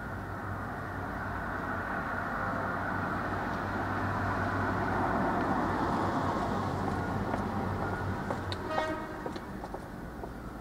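Road traffic noise at a level crossing, swelling to a peak midway as a vehicle passes and then easing off, over a steady low hum. About nine seconds in there is a short horn-like toot.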